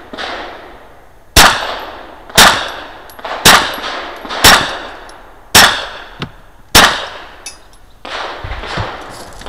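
Six 9mm shots from a Walther Q5 Match pistol, fired at an even pace about a second apart, each ringing off a concrete wall. A few softer knocks follow near the end.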